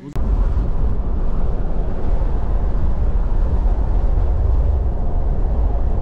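Steady, loud low rumble of a moving vehicle, cutting in abruptly just after the start and holding even throughout.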